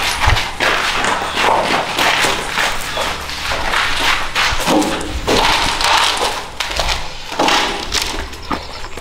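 Hurried footsteps with irregular thuds and rustling from clothing and a jostled handheld camera.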